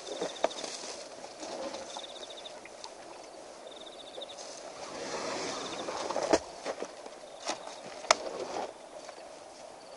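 African bush elephant tearing up and chewing dry grass close to the microphone: rustling and crunching, with a few sharp snaps of stems in the second half.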